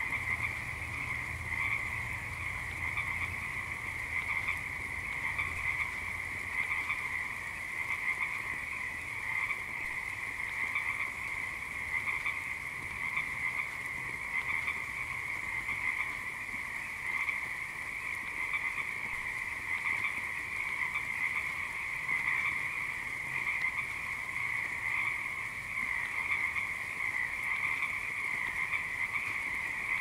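A dense chorus of many frogs croaking at once, an unbroken, finely pulsing din that holds steady throughout.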